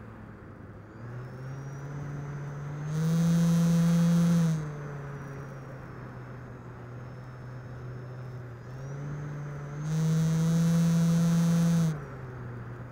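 RC model Air Tractor's motor and propeller running steadily, heard from the onboard camera, with a faint high whine. It is throttled up twice: about three seconds in for a second and a half, and again about ten seconds in for two seconds. Each time the drone rises in pitch and gets louder with a rush of air, then drops back to cruise.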